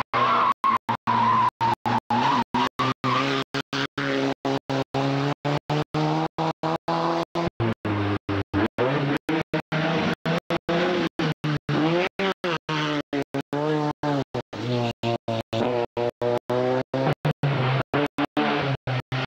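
Rally car engines revving hard through tight bends, one car after another, the revs rising and falling as they brake and accelerate. The sound keeps cutting out for a split second, two or three times a second.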